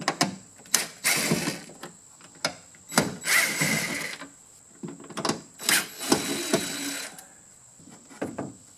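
Cordless drill-driver running in three short bursts of about a second each, backing out the screws that hold a car door speaker, with clicks and knocks between the bursts.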